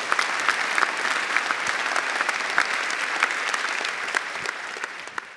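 A large audience applauding, many hands clapping together, easing off slightly near the end.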